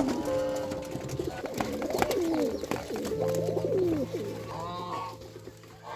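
Farm birds calling, with overlapping calls, several sliding down in pitch. A low steady tone joins in about three seconds in.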